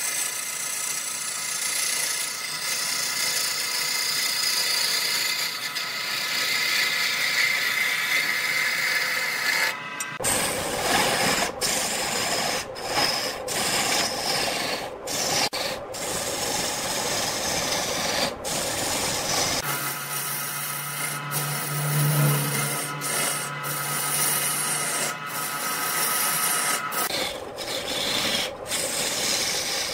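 Wood lathe running while a hand-held turning tool cuts into a spinning wood blank, a continuous scraping, shaving noise over the machine's steady hum. The sound changes abruptly three times, about a third of the way in, two-thirds in and near the end.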